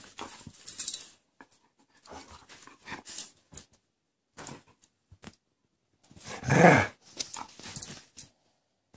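A dog growling in play while wrestling with a kitten, amid short scuffling noises; the loudest growl comes about six and a half seconds in, rising and falling in pitch.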